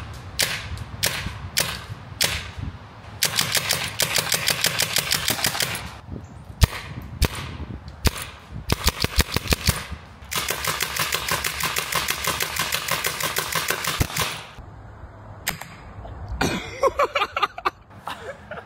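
Solenoid-triggered paintball marker on a remote-controlled turret firing: scattered single shots, then a rapid burst lasting about three seconds, more single shots, and a second rapid burst of about four seconds.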